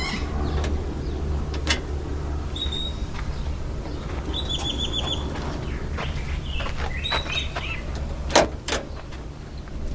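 Birds chirping in short high twittering runs over a steady low background hum, with a sharp click about two seconds in and two louder clicks close together near the end.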